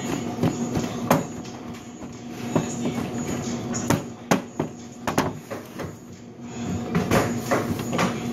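Large kitchen knife chopping and scraping on a plastic cutting board: irregular sharp knocks, a dozen or so, over a steady low hum.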